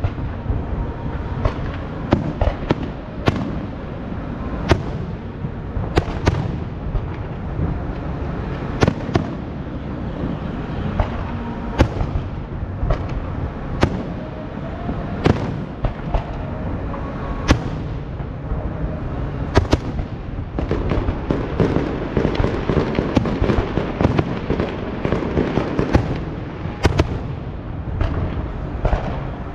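Aerial fireworks display: a continuous low rumble of shell bursts, broken by many sharp cracks at irregular intervals.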